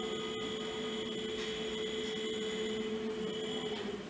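A steady mechanical hum made of several held tones, which cuts off shortly before the end.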